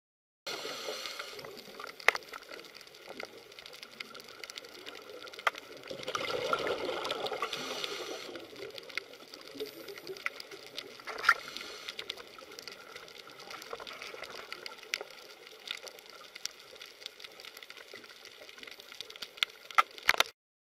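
Underwater ambience picked up by a submerged camera: a steady rush of water with many scattered sharp clicks, swelling louder for a couple of seconds about six seconds in.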